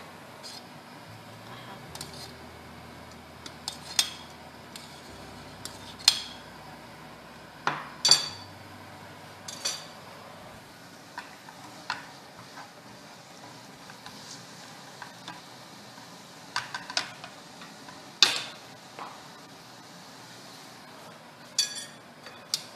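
Spoons stirring and clinking against a stainless steel cooking pot and a frying pan while molokhia cooks: irregular sharp clinks every second or two.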